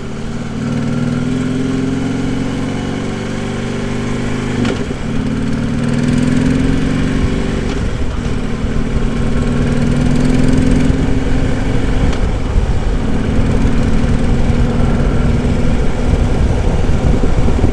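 Harley-Davidson V-twin motorcycle engine running steadily under way, heard through a helmet-mounted lavalier mic with wind rumble. The engine note breaks briefly about 5 and 12 seconds in.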